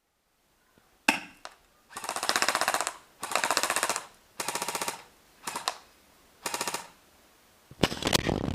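Airsoft electric gun (AEG) firing on full auto in about six short bursts of rapid clicks, with short pauses between them.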